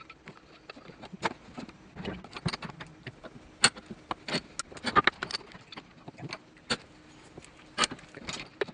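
Irregular clinks and knocks of a steel driveshaft, yoke and U-joint being handled and set between the jaws of a bench vise.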